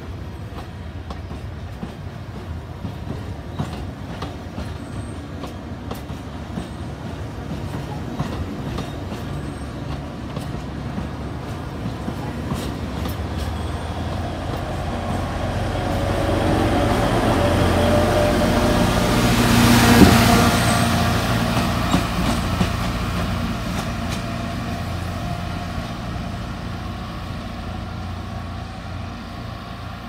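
Alishan Forest Railway narrow-gauge diesel locomotive and carriages moving past along the platform: a steady engine rumble with clicking wheels. The rumble grows louder as the locomotive draws level, about two-thirds of the way through, with one sharp knock at its loudest, then fades away.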